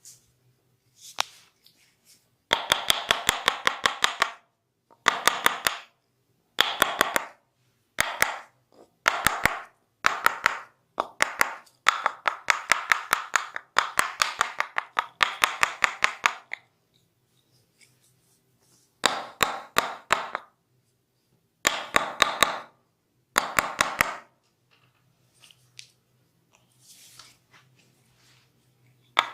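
Hand-tapping massage: a barber's hands, held together or cupped, striking the body in quick, even runs of about five or six claps a second. Each run lasts a second or two, with short pauses between.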